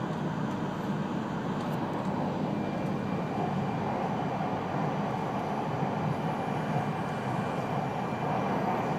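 E3-series Yamagata Shinkansen train running at speed, heard from inside the passenger car as a steady, even rumble. A faint high whine joins in about two and a half seconds in.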